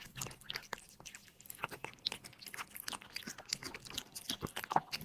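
Cat chewing and crunching food, a quick irregular run of small crunches and mouth clicks.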